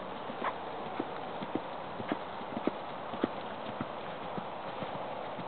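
Hoofbeats of a horse cantering on grass: uneven soft thuds over a steady hiss.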